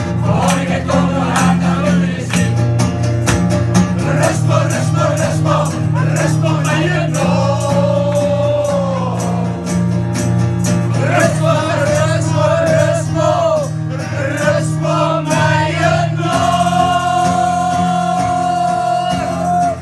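A group of people singing a song together with acoustic guitar accompaniment. Near the end they hold one long note.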